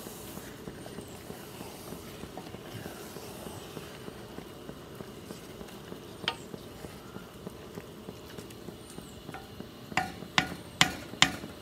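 Wooden spoon stirring and folding a thick mix of baked beans and pulled pork in a pan, over a steady low sizzle from the food cooking on the propane camp-stove burner. One sharp knock about halfway through, then four quick sharp knocks near the end as the spoon is tapped against the pan.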